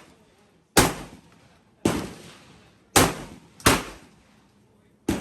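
Five sharp gunshots, spaced about a second apart, each trailing off in a short echo.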